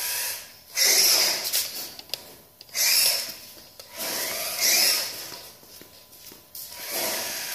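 Tamiya Grasshopper RC buggy's small brushed electric motor and gear drive whirring in five bursts of about a second each as the throttle is blipped, with the car stuck and its wheels spinning.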